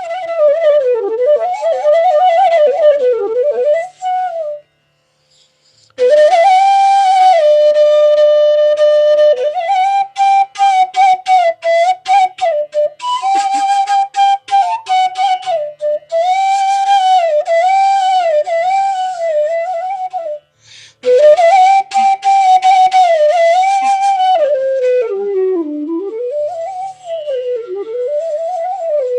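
Solo bansuri (bamboo flute) playing a slow melodic line with many slides and bends between notes. It holds one long steady note, then plays a run of quick separated notes, with brief breaks about four seconds in and again about twenty seconds in.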